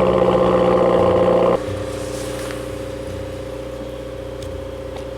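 Car engine running at a steady pitch, turning abruptly quieter about a second and a half in and then running on evenly.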